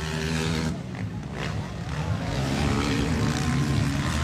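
Motocross bike engines running on the dirt track, a steady buzzing drone that dips briefly about a second in.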